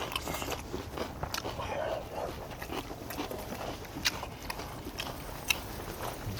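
Close-up eating sounds: chewing and mouth noises, with a few sharp clicks scattered through.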